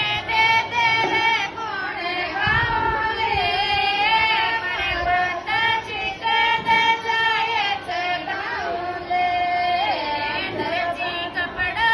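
Women singing a Rajasthani devotional folk song to the mother goddess (Mataji geet). A leading voice holds long, wavering notes.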